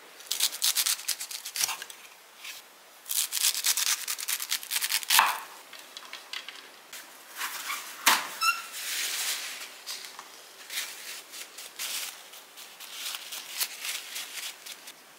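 Chef's knife cutting through the base of a clump of golden enoki mushrooms on a wooden cutting board, two runs of crisp crackling as the stems give. A single sharp knock with a brief ring about eight seconds in, then softer rustling and small snaps as oyster mushrooms are pulled apart by hand over a plastic tray.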